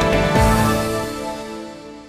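TV news programme closing theme music: a last beat about half a second in, then a held chord fading out.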